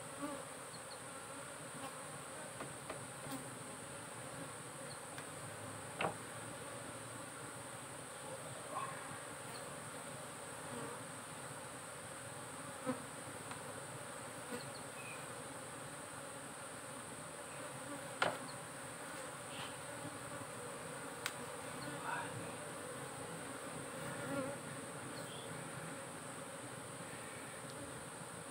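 Asian honey bees (Apis cerana) buzzing steadily over an opened hive box, with a few short sharp knocks scattered through.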